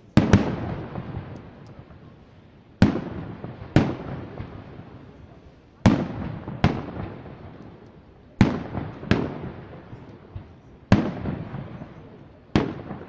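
Aerial firework shells bursting in a display: about ten sharp bangs, often in pairs a second or less apart, each trailing off as it echoes.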